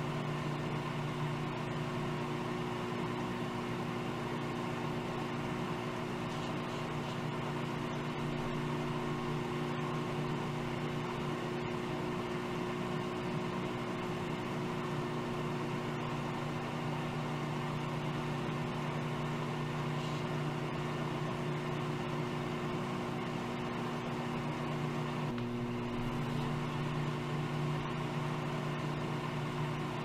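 Microwave oven running with a steady hum.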